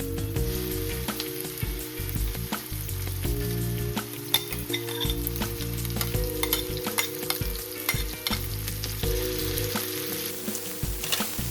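Food sizzling as it fries in oil in a pan, stirred with frequent short clicks and scrapes of a utensil against the pan.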